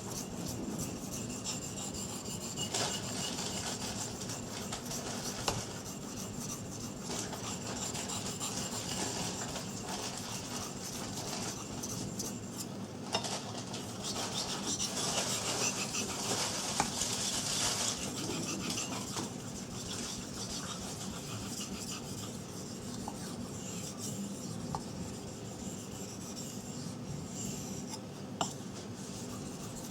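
A 3V steel knife blade being stroked over an 800-grit water stone: a continuous rasping rub of steel on stone, louder for a few seconds past the middle. The blade is held at a slightly raised angle to take the micro-serrations off the edge.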